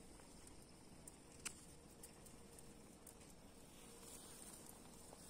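Near silence: faint forest ambience with a steady high insect chirring, a few soft clicks and one sharper click about a second and a half in.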